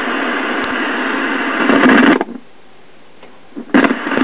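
Static hiss from the speaker of a 1977 RCA 12-inch black-and-white TV tuned to no station, the sound of an empty channel with no signal. The hiss cuts out for about a second and a half midway, then comes back.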